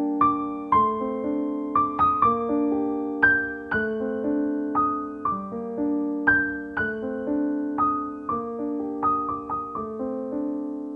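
Piano music: a slow, gentle melody of notes and chords, each struck and left to ring out.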